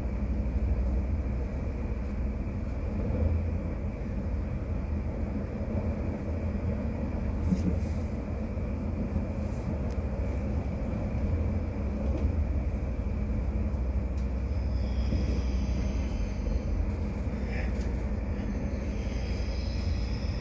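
Passenger train running at speed, heard from inside the carriage: a steady low rumble of wheels and running gear on the rails. Faint high-pitched tones come in over the last few seconds.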